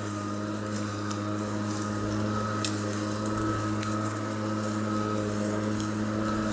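Atlas 80V cordless brushless self-propelled lawn mower running steadily, its electric motor and blade humming with a thin higher whine while cutting thick zoysia grass, with a few faint ticks over it.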